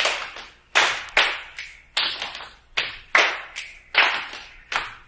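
Hand clapping as body percussion in a steady rhythmic pattern, about two and a half strokes a second, stronger and lighter strokes alternating.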